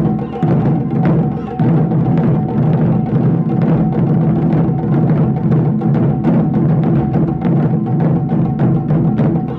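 Wadaiko (Japanese taiko drums) played by a group in a fast, dense run of strokes, the deep drums booming without a break underneath.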